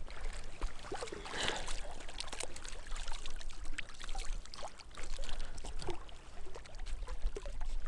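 Hands splashing and rinsing in shallow reservoir water, a run of irregular small splashes and trickles, over a steady low wind rumble on the microphone.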